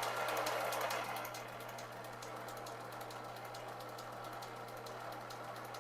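Belt-driven pulley rig running on an electric motor: a steady hum with a fast, even ticking of several clicks a second as the belt goes round the crowned pulley. It is louder for about the first second, then settles to a steady level.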